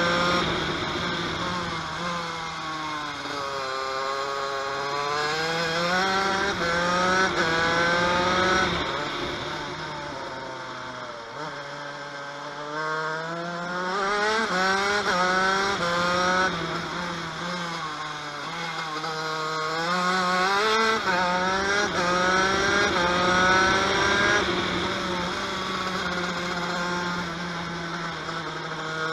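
TM KV92 125cc two-stroke shifter kart engine driven hard on a lap. The revs climb in repeated rising sweeps that drop back sharply at each upshift, then fall away under braking and downshifts about ten seconds in and again near twenty seconds, before winding up once more.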